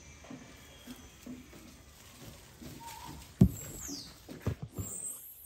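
A macaque climbing through leafy branches: soft rustling and patter, then a loud thump a little over three seconds in and a few quick knocks near the end as it gets onto the roof of a metal-framed shelter.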